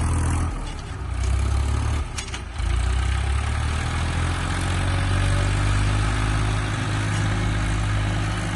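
Tractor engine running steadily with a low drone while ploughing. It dips briefly about one and two seconds in, with a short click just after two seconds, then holds steady.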